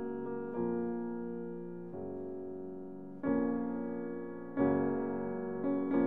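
Background music: slow piano chords, a new chord struck about every second and a half, each ringing and fading before the next.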